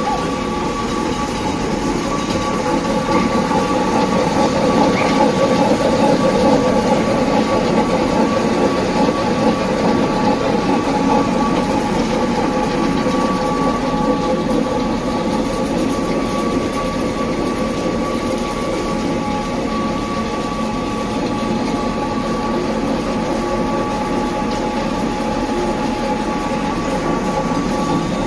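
Small flat-die feed pellet mill running steadily under load, driven by an electric motor and chain drive, as pellets drop out onto a belt conveyor. A continuous mechanical rattle with two steady high whining tones over it.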